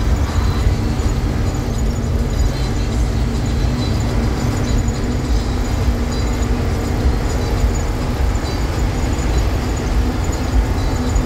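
Isuzu FRR33 diesel school bus heard from inside its cabin while driving at highway speed: a steady engine drone with road rumble.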